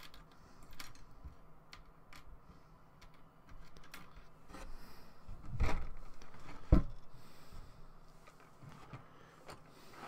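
Small plastic model-kit parts being handled, with scattered light clicks and taps and two louder knocks a little past halfway, as pieces are picked up and set down on a hard surface.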